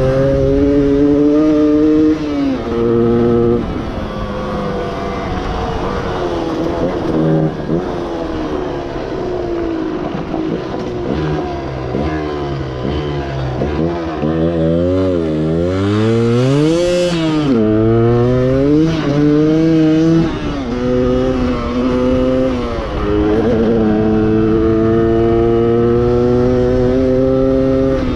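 Stock 1994 Yamaha DT125R's two-stroke single-cylinder engine running on the road. It holds a steady note with brief breaks near the start, then the revs fall and climb several times, rising highest about two-thirds in, before settling to a steady cruise.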